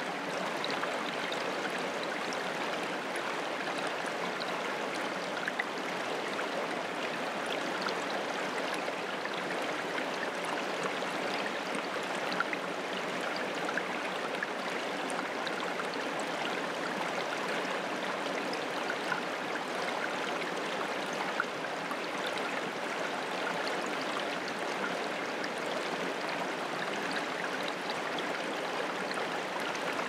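Small mountain creek trickling and gurgling over rocks in tiny waterfalls: a steady, even rush of water with faint little ticks scattered through it.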